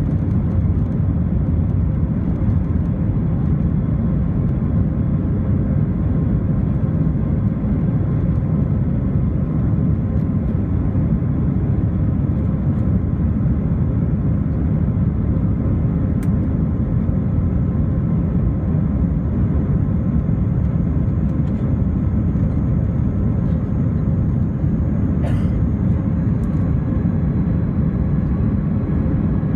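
Airbus A320 cabin noise heard from a window seat during the climb after takeoff: a steady, deep, even rumble of the engines and rushing air, with a faint steady hum above it.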